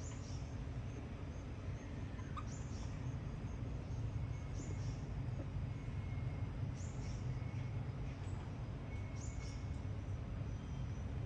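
A bird's short, high chirps, about five of them, roughly two seconds apart, over a steady low background rumble.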